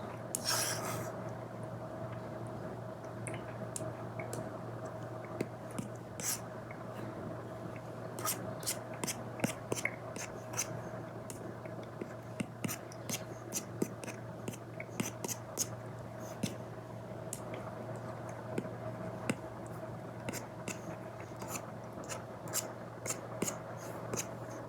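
Apple Pencil Pro tip tapping and scratching on an iPad screen fitted with a paper-like screen protector: irregular sharp ticks, with a short scratchy stroke about half a second in and quick runs of taps from about eight seconds on, over a steady low hum.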